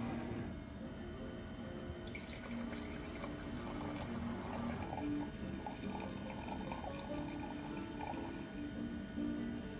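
Red wine being poured from a bottle into a large stemmed wine glass, a steady splashing pour, over background music.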